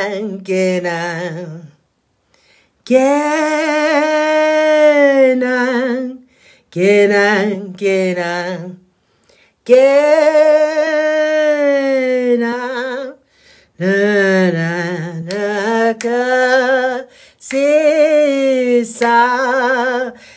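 A woman singing unaccompanied, in long held phrases with a strong vibrato, broken by short pauses between lines.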